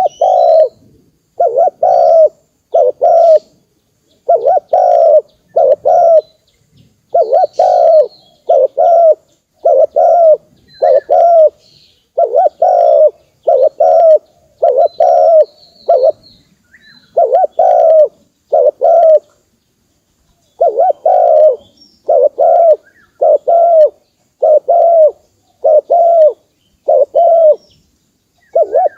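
Spotted dove cooing: a steady series of low coo notes in clusters of two to four, with short pauses between the phrases. Faint high chirps of small birds come in now and then behind it.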